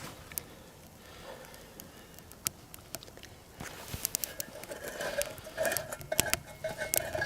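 Scattered sharp clicks and light rustling from handling around a small wood-burning tent stove as it is being lit. The clicks come more often from about halfway.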